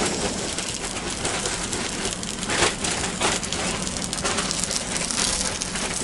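Hamburger patties sizzling in a frying pan on a canister camp stove: a steady, crackling fry.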